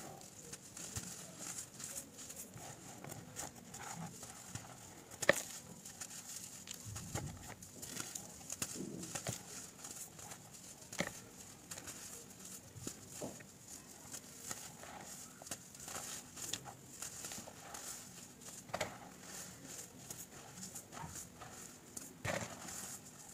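Hands crumbling and squeezing compacted clumps of baking soda: soft, irregular crunches and crackles of breaking powder, with one sharper snap about five seconds in.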